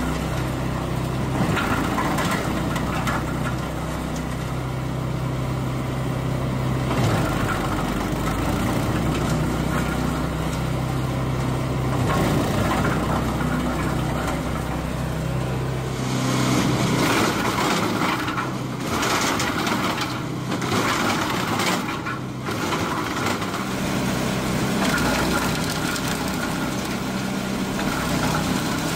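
Screw-type wood chipper with a 14 hp petrol engine running steadily while its auger crushes branches into chips, with wood cracking and splintering. About halfway through, the engine's low hum drops back and the cracking of the wood grows louder.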